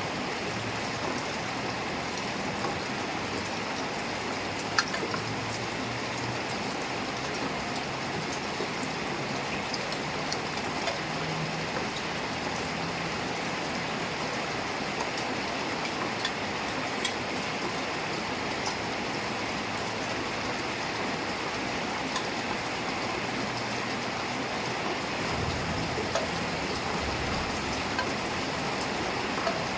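Heavy rain falling steadily, a dense even hiss with scattered drips and one sharper tap about five seconds in.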